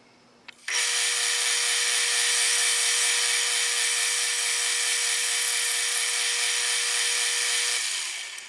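Metal lathe switched on about a second in and running with a steady whine while a twist drill in the tailstock bores into the spinning steel bar stock. It is switched off near the end and runs down.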